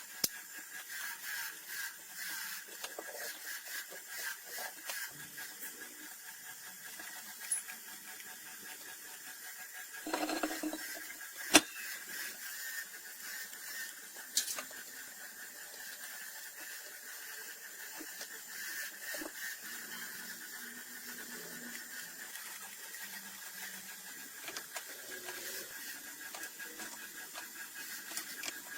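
Scattered light clicks and taps of hand tools working on metal engine parts, with one sharp metallic knock about eleven and a half seconds in. A steady faint high-pitched hum runs underneath.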